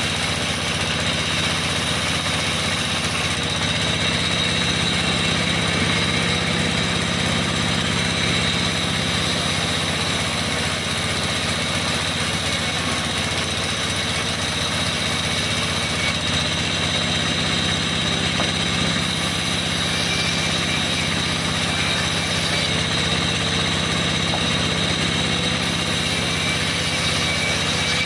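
Vertical band sawmill running steadily while a log is pushed through the blade and sawn into a board: a constant machine hum with a steady high whine over it.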